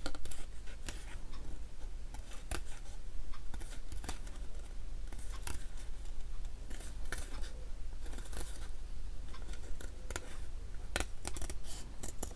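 Scissors snipping through paper in a series of irregular cuts.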